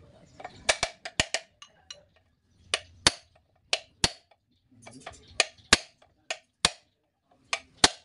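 Hammer blows on a steel rivet punch, setting the rivets of a brake lining on a truck brake shoe: about fifteen sharp metallic strikes, a quick cluster in the first second, then single blows every half second or so.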